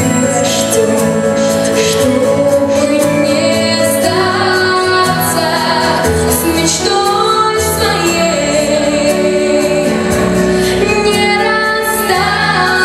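A young girl singing into a microphone over instrumental accompaniment, a slow melodic song.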